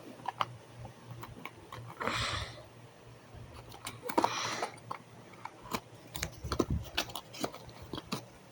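Light clicks and taps of small plastic toys being handled, with two short rustling hisses about two and four seconds in.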